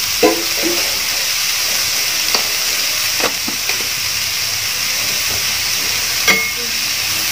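Sliced onions sizzling steadily in hot oil in a large metal pot as they are sautéed soft. A metal spatula stirs them, giving a few short knocks and scrapes against the pot, the strongest near the end.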